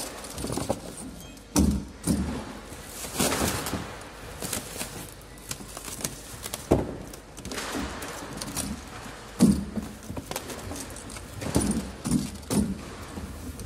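Shrink-wrapped multipacks of plastic Coca-Cola bottles being handled and set down on a wooden pallet: irregular thuds and knocks every second or two, with plastic rustling in between, over warehouse background noise.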